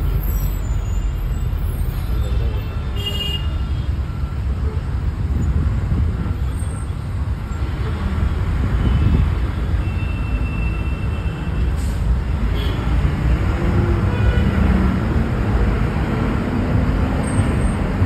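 Steady engine and road rumble heard from inside a moving bus in slow roadway traffic, with a few brief, faint high-pitched tones.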